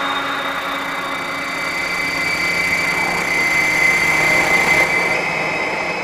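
Dark ambient noise drone: a steady hiss with several held high tones layered over it, shifting slightly about five seconds in.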